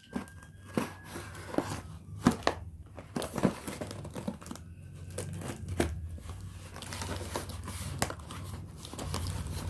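Packaging crinkling and tearing as a parcel is opened by hand, with irregular crackles and sharp snaps.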